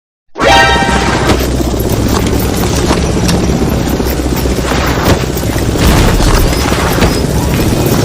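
Loud music with heavy, booming bass that cuts in suddenly out of silence and runs on steadily.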